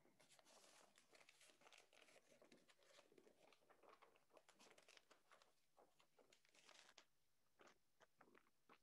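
Faint paper handling: crinkling and tearing of a sealed bid envelope being opened and its documents pulled out and shuffled. It is dense and busy for about seven seconds, then thins to a few separate rustles.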